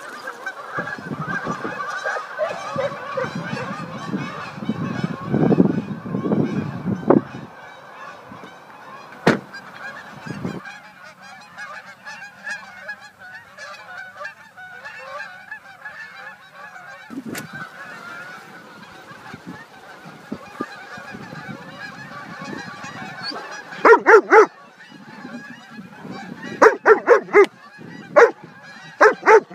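A flock of Canada geese honking, with many calls overlapping and a low rumbling noise under them for the first seven seconds. In the last five seconds come loud, close honks in quick runs as the flock flies over.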